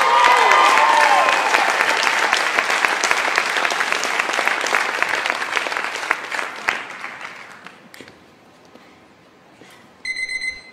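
Audience applauding, with a few cheers at the start, the clapping dying away after about seven seconds. Near the end, an electronic beeping starts.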